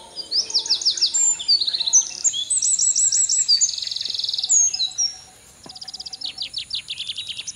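Songbirds singing: a busy series of high, quick phrases of down-sliding notes and trills, one after another, with a brief lull about five seconds in before a fast run of repeated notes.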